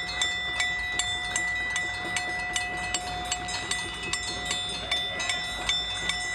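Scattered clapping and clanging of neighbours applauding from their windows, many sharp irregular claps, over a struck metal bowl that keeps ringing steadily on a few high tones.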